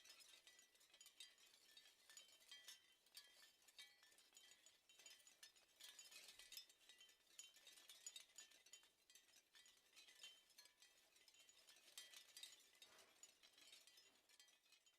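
Wind chimes tinkling in the wind: faint, irregular light strikes of small high-pitched bells, several a second, ringing on.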